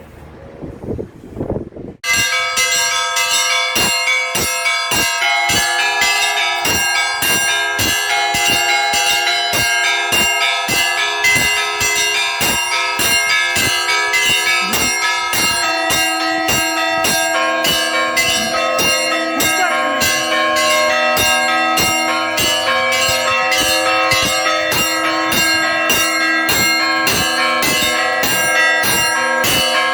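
Russian Orthodox church bells rung in a festive peal: the small bells strike rapidly in a steady rhythm, with many bell pitches ringing over one another. The peal starts suddenly about two seconds in, after a low rumble of wind on the microphone, and deeper bells join about halfway through.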